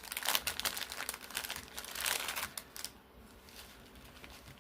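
Small plastic bags of diamond-painting drills crinkling as they are handled: a dense crackle that dies down about three seconds in.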